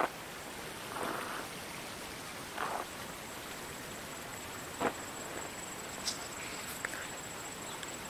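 Outdoor ambience: a steady hiss with a faint high whine throughout, broken about half a dozen times by short rustles or knocks.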